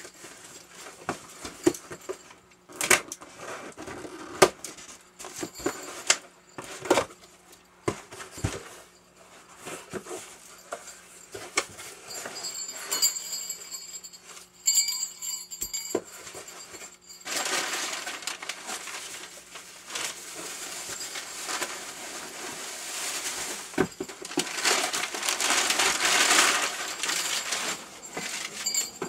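A cardboard box being unpacked by hand: scattered knocks and scrapes of cardboard and contents, then from a bit past halfway a long stretch of crinkling, rustling packing paper as the wrapped item is pulled out.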